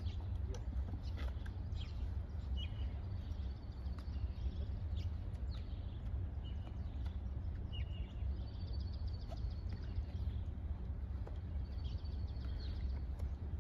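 Small birds chirping and trilling off and on over a steady low rumble, with scattered light clicks.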